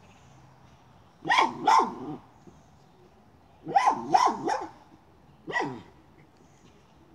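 Miniature schnauzer barking at a chipmunk hiding in a pipe: about six barks in three short bursts, two, then three, then one.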